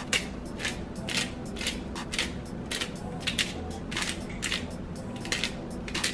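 Handheld glass spice grinder being twisted by hand, grinding in a steady run of short crunches, about two twists a second.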